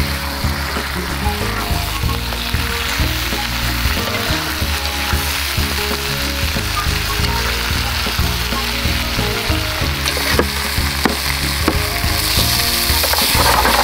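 Fried snakehead fish pieces sizzling in a pan of green chili sambal, with a metal spatula stirring and scraping against the pan. The sizzle grows brighter near the end.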